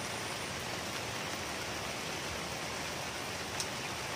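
Steady rain falling on open water, an even hiss, with one faint click about three and a half seconds in.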